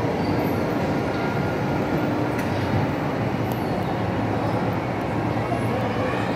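Indoor amusement ride running, a steady mechanical rumble as the car rolls along, over the din of a large hall.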